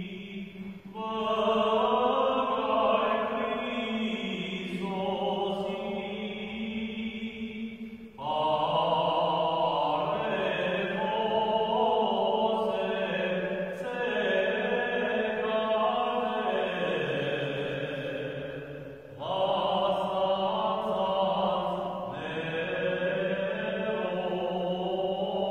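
A single male voice chanting Armenian liturgical hymns in long held phrases, with short breath pauses about a second in, at about eight seconds and at about nineteen seconds.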